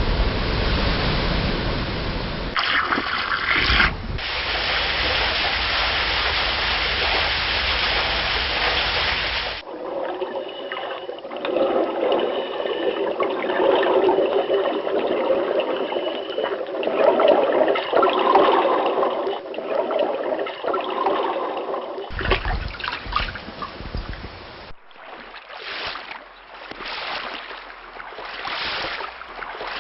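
A run of different water recordings: about ten seconds of steady rushing water, then a sudden change to bubbling, gurgling water, then, from about 22 seconds in, irregular splashing.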